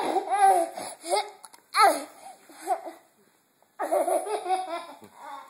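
A toddler boy laughing in three bursts of high-pitched giggles, with a short pause a little past halfway. He is laughing at his own hiccups.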